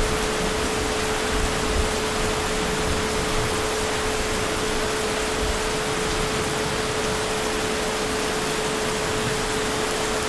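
Heavy rain falling in a steady, even hiss, with a steady tone sounding under it throughout.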